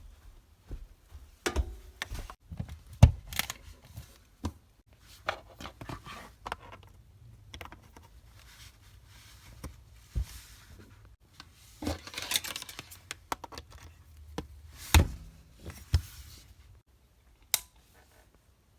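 Irregular clicks and knocks of objects being handled, with a longer rustle partway through; it quiets down near the end.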